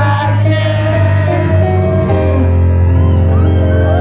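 Live rock band playing loud over a venue PA, recorded from within the crowd: a deep bass note is held under sustained chords.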